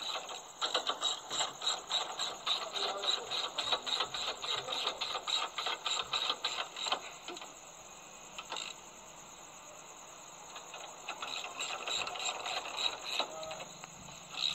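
Ratchet wrench on a long extension clicking fast as a bolt on the radiator support is turned. It comes in two runs: about six seconds of rapid clicks, a pause of about three seconds, then a shorter run.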